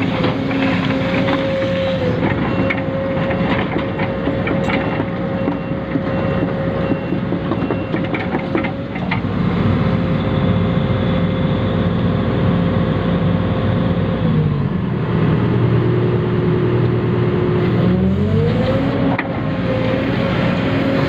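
Electric motors and gearing of radio-controlled construction models whining steadily, with scattered clicks and rattles. About two-thirds of the way through, the whine drops in pitch and climbs back up some four seconds later, as if a motor slows under load and then recovers.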